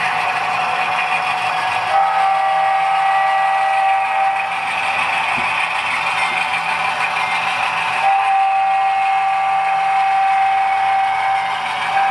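LokSound sound decoder in an HO scale GE C39-8 model locomotive blowing its multi-chime air horn through the model's small onboard speaker: two long blasts, with a third beginning near the end, over the steady diesel engine sound. The long-long pattern is the start of the grade-crossing horn signal.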